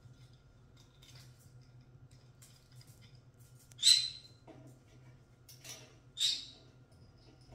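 Young Pyrrhura conure giving two short, shrill squawks about two and a half seconds apart, with fainter scratchy noises between them.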